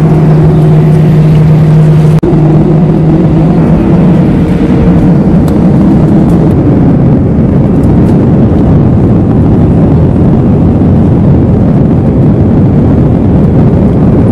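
Passenger jet's engines at takeoff thrust, heard inside the cabin: a loud, steady roar as the plane speeds down the runway and climbs away. A low hum in the first few seconds gives way to a broad, even roar.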